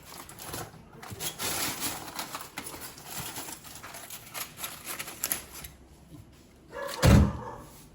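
Clicking, clinking and scraping of utensils and dishes for about five seconds, then a single short dog bark about seven seconds in.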